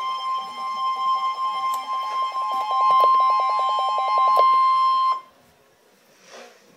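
Emergency Alert System attention signal for a severe thunderstorm warning: a steady high tone with a fast pulsing beep beneath it, cutting off suddenly about five seconds in.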